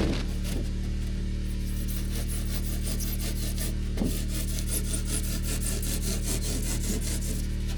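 A handsaw cutting through rigid foam board insulation in quick back-and-forth strokes, which start about a second and a half in. A steady low hum runs underneath, with a knock about halfway through.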